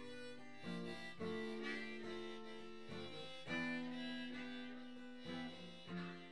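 Soft background music: a slow melody of held notes, gradually fading out near the end.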